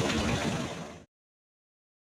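Sea surf washing on a beach, a steady rushing noise that fades fast and cuts off about a second in, leaving dead silence.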